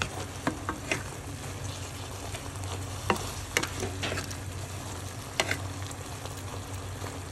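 Pot of noodles in broth cooking on the heat, a steady sizzling hiss with scattered sharp pops and clicks at irregular times, over a low steady hum. A wooden spatula stirs the noodles in the pot.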